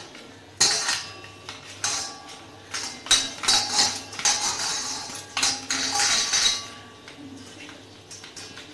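Raw hilsa fish steaks being rubbed with salt and turmeric by hand in a stainless steel bowl: pieces and fingers knock and scrape against the bowl, which rings briefly after each knock. The knocking dies down after about seven seconds.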